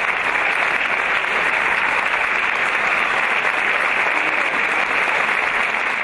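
Theatre audience applauding steadily, with dense clapping.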